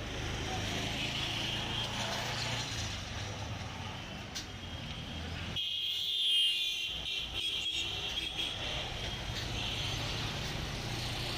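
Street traffic noise: motor vehicles running and passing on a busy road, a steady low rumble with a hiss above it. About halfway through, the rumble drops out for a couple of seconds while the higher hiss grows louder.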